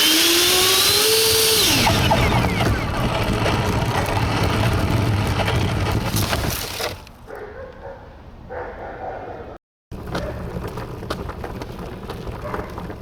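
Twin 80 mm electric ducted fans at a full-power burst. A rising whine peaks in the first second or two, then gives way to a loud, steady rush of fan noise. The noise drops off sharply about six and a half seconds in as the throttle comes back. Lower, steadier noise follows after a brief cut.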